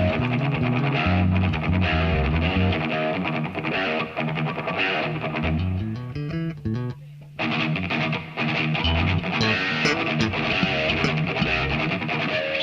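Band music with electric guitar, bass and drums. About seven seconds in it thins briefly to a held low note, then the full band comes back in.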